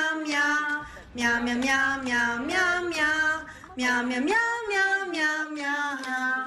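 A high voice singing a simple tune on "meow, meow" syllables, in three sung phrases with short breaks about a second and about three and a half seconds in.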